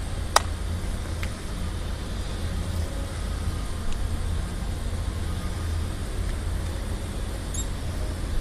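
Steady low outdoor background rumble, like distant traffic, with one sharp click about half a second in.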